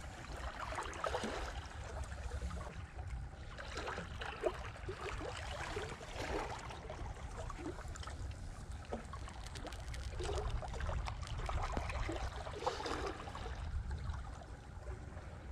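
Water lapping and trickling in small irregular splashes, over a steady low rumble.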